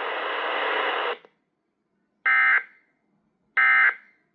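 Hiss from the relayed broadcast audio cuts off about a second in. Then come two short, identical warbling data bursts about 1.3 s apart: the Emergency Alert System end-of-message (NNNN) tones from a TFT EAS unit's speaker, closing a relayed severe thunderstorm warning.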